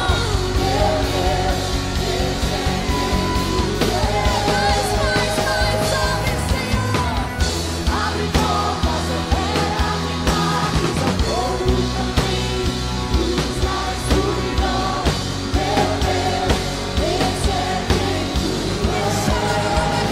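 Live worship band music: a drum kit keeping a steady beat under keyboard and guitars, with a group of singers singing the melody.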